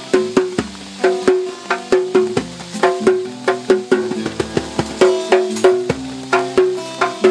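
A round hand drum struck with bare hands in a quick, even rhythm, about three to four strokes a second. Each stroke leaves a short ringing note, and the notes fall on several different pitches, so it sounds like a simple tune.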